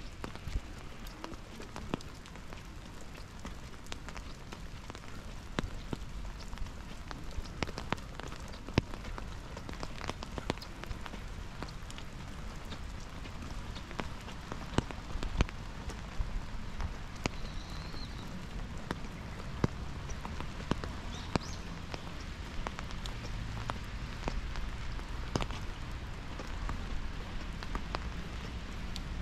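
Steady rain falling on wet stone paving, with many scattered, irregular sharp raindrop taps.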